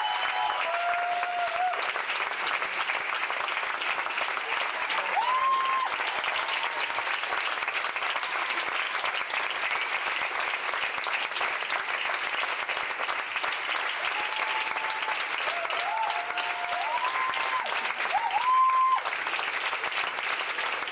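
Theatre audience applauding steadily, with a few short, high voice-like calls rising above the clapping, most of them near the end.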